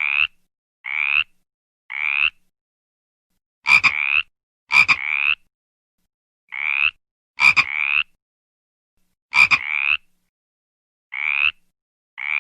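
Frog calls: a series of short croaks, each about half a second long and rising slightly in pitch, repeated roughly once a second. Several croaks come as doubles led by a sharp click, and there is silence between calls.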